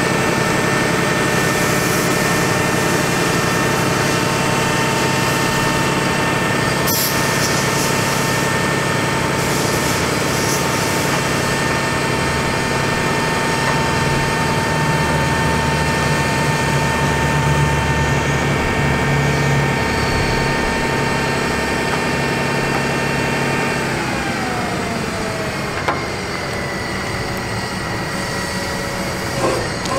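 Truck engine and its hydraulic system running steadily to work an Altec DC47TR digger derrick's boom, with an even whine. The whine falls in pitch a few seconds before the end, and there is a sharp click about seven seconds in.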